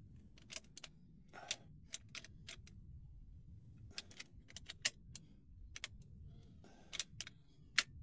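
Irregular light metallic clicks and ticks of a bent steel wire overlifter being worked in the keyhole of a Yale 3-lever mortice lock, rattling against the levers as it lifts them.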